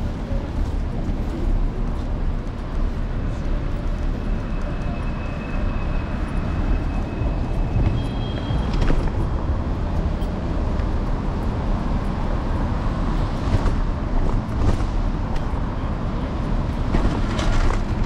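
Steady street traffic and road noise heard from a moving electric scooter, with a constant low rumble. Thin high tones come and go between about four and nine seconds in.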